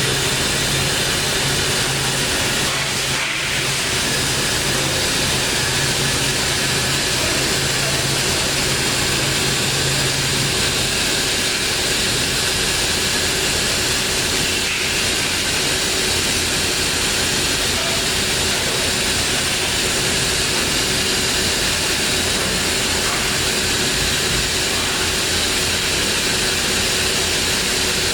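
Bridgeport Torq Cut 22 CNC vertical machining center running: a steady hiss with a constant tone underneath and a low hum that stops about eleven seconds in.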